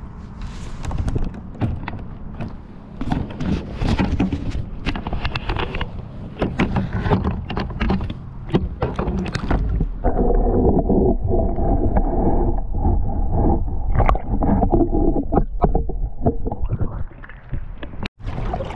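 Lake water splashing and gurgling close to the camera, in many irregular sloshes over the first half. About ten seconds in it turns to a muffled, duller underwater water noise, with a sudden break near the end.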